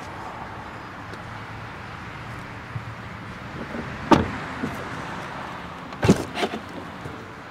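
Tesla Model S doors: a car door shuts with a sharp clunk about four seconds in, then about two seconds later the front door's flush handle is worked and the door unlatches with another clunk and a couple of clicks.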